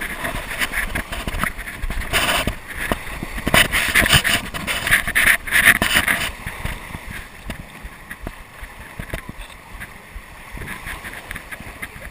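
Sea waves splashing and lapping around a jet ski on its wooden launch ramp, its engine not running. The splashing is loudest and most irregular in the first half, then settles to a quieter wash.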